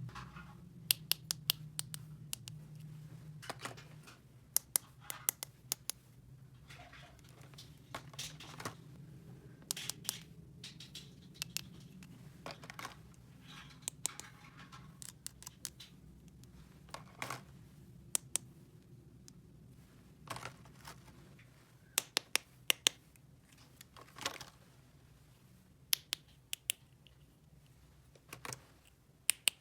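Small plastic toy pieces being handled and set down: irregular sharp clicks and taps with a few light scrapes, over a faint steady hum.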